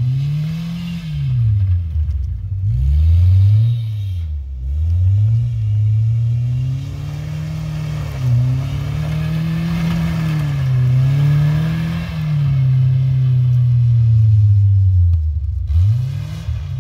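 Ford Ranger pickup's engine revving up and easing off over and over as it is driven hard around a rallycross course on snow. The pitch rises and drops every second or two, with a longer, steadier high-revving stretch in the middle.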